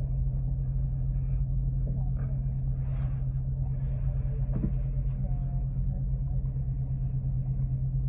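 Diesel engine of a GO Transit coach bus idling while the bus stands still, heard from inside the passenger cabin as a steady low hum.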